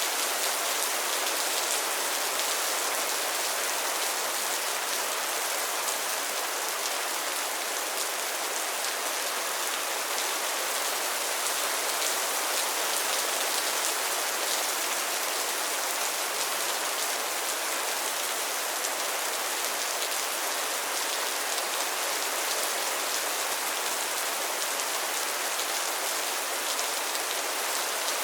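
Steady rain falling on a pond's water and lily pads: an even hiss of dense drops with many fine, close patters, unchanging throughout.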